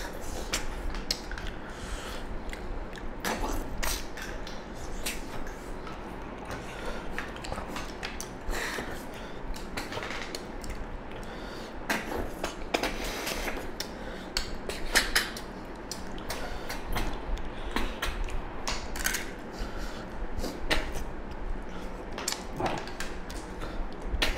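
Close-up eating sounds: irregular slurps, sucks and smacks of people eating snails (tharoi) and pork curry by hand, with small clicks and clinks against steel plates.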